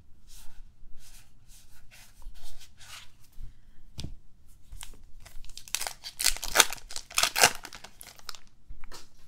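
A foil trading-card pack being torn open and crinkled, loudest from about six to seven and a half seconds in. Before that come soft rustles of cards being handled and a single tap about four seconds in.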